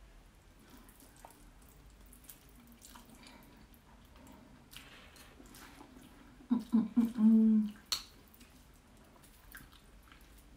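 Close eating sounds of instant noodles: quiet chewing and slurping with faint wet mouth clicks. About two-thirds through comes a short vocal hum from the eater, followed by a click of metal chopsticks against the ceramic bowl.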